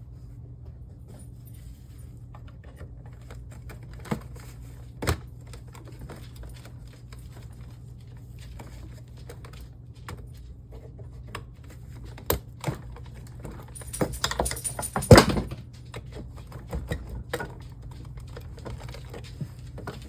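The cap at the top of a Compaq LCD monitor's stand being pried loose: scattered small clicks and knocks, with a louder cluster of clicks and a sharp snap about fifteen seconds in.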